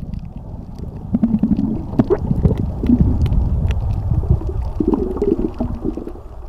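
Underwater bubbling and gurgling from scuba divers' exhaled bubbles, over a low rumble with scattered small clicks.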